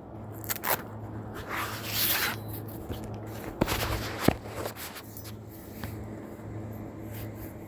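Scraping and rustling handling sounds, with one longer rasp about two seconds in and a few sharp clicks and knocks after it, over a steady low hum.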